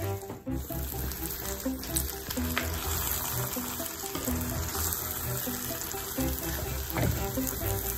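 Background music with a simple stepping melody, over a steady sizzling hiss from hot tempering oil poured onto jackfruit thoran in a clay pot.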